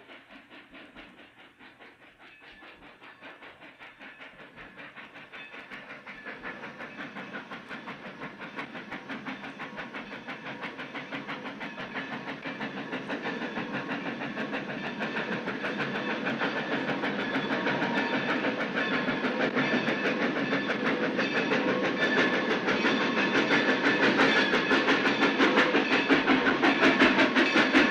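Steam locomotive approaching, its rhythmic pulsing beat growing steadily louder throughout as it runs into a station.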